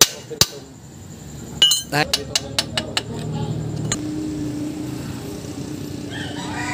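Metal hand tool tapping on metal at a truck's axle spindle: sharp ringing clinks, two in the first half second and a quick run of about six around two to three seconds in.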